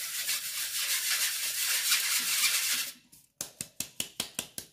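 Flour being sifted through a stainless steel drum sieve: about three seconds of steady, scratchy hiss as the flour is worked through the mesh, then quick, even taps on the sieve, about six a second.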